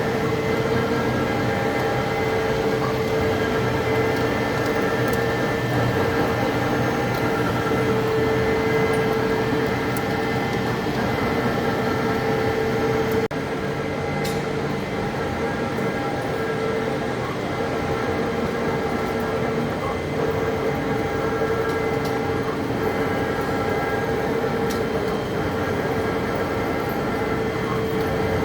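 Heavy-duty lathe turning a large steel part: a steady mechanical drone with a held tone running through it, with a sudden slight change about thirteen seconds in.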